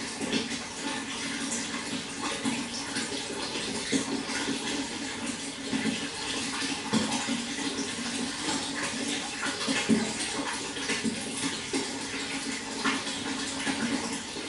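Running water splashing and trickling steadily, with many small irregular splashes over a constant rush.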